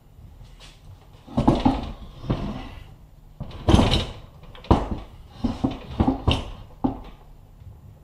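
Bare aluminium two-stroke crankcase halves of a Rotax 951 being handled and repositioned on a wooden workbench: a string of irregular knocks and clunks, the loudest about four seconds in.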